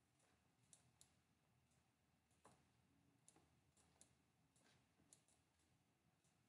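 Near silence with faint, irregularly spaced computer mouse clicks.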